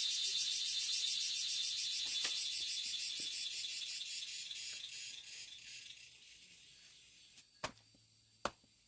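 Insects trilling in a fast, even pulsing buzz that fades away over several seconds, followed by two sharp clicks near the end.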